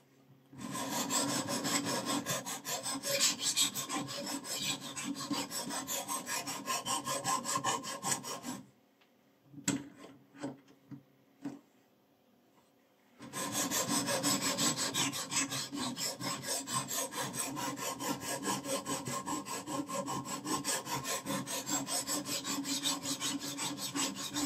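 Abrasive stone on the guide rod of a fixed-angle knife sharpener, stroked rapidly back and forth along a kitchen knife's edge in an even rhythm. The strokes stop for about four seconds in the middle, with a few clicks, then start again.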